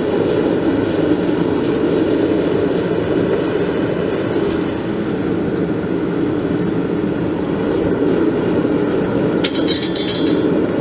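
Small gas forge's burner running with a loud, steady rush of flame. Near the end, a brief metallic clatter as tongs and the blade are set on the anvil.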